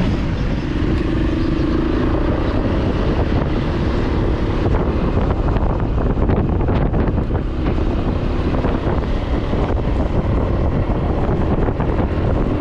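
Steady wind rush buffeting the microphone of a camera riding along on a road bicycle at speed, over a constant low rumble of tyres on the road.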